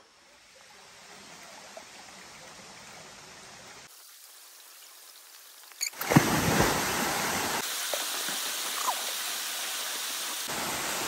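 Steady rushing water of a jungle stream and waterfall, in short cut-together takes: faint for the first few seconds, then much louder from about six seconds in, with a brief bump just as it gets loud.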